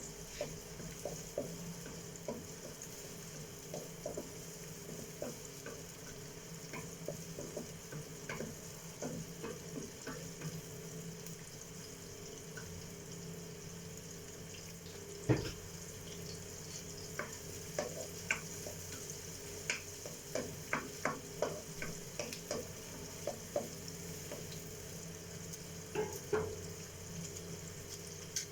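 Food sizzling steadily in a frying pan while a spoon or spatula stirs it, clicking and knocking against the pan many times. One stroke about halfway through is louder.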